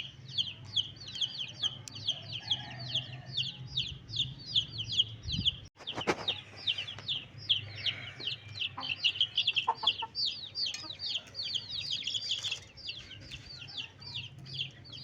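A flock of chicks peeping continuously: a rapid run of high, downward-sliding peeps, several a second. There is a brief break just before the middle, followed by a single knock.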